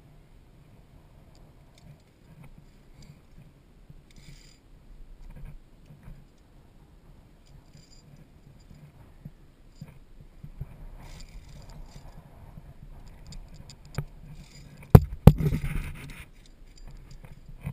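Climbing-gear handling noise on a via ferrata: scattered scrapes and small clicks of hands, gear and boots on rock and the steel safety cable, then two sharp knocks close together near the end, followed by a brief scuffle as the cable comes against the camera.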